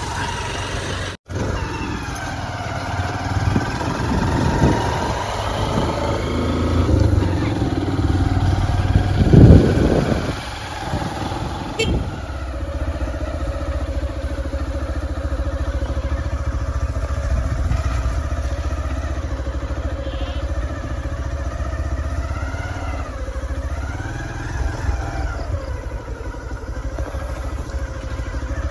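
Motorcycle engine running while under way, its pitch rising and falling, with wind buffeting the microphone. There is a loud burst of rumble about nine seconds in.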